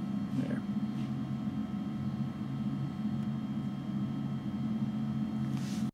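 Steady low hum of the conductance mill's electric motor and gearbox, running empty now that the grain has all been crushed.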